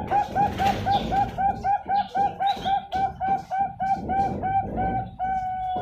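Bangkok-bred zebra dove (perkutut) cooing a fast run of short, evenly repeated notes, about five a second, then one longer held note near the end. This is the 'many middle notes, long end note' song pattern that perkutut fanciers prize.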